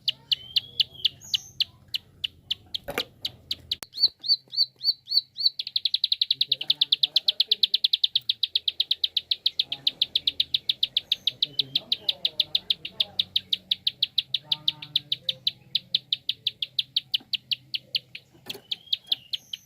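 Prinia (prenjak) giving its fast 'klik' call: a long string of sharp, high clicking notes, at first a few a second, then speeding into a rapid run from about six seconds in, then slowing again near the end. A single sharp knock comes about three seconds in.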